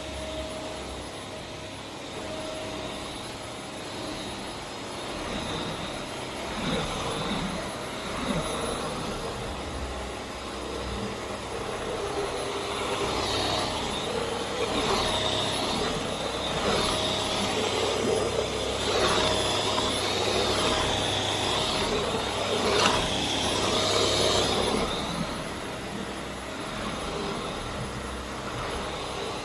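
Vax Air Steerable Max upright vacuum cleaner running steadily. Its motor whine wavers in pitch and grows a little louder through the middle stretch.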